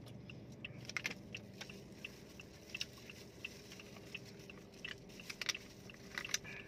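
People chewing mango with their lips smacking, heard as a string of small, irregular clicks, with the clear plastic bags that hold the fruit rustling now and then.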